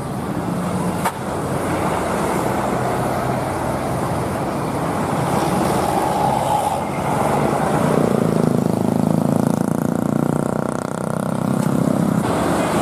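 High-decker coach bus driving through a tight bend and passing close by, its diesel engine running steadily, with motorcycle and road traffic noise. It grows a little louder in the second half.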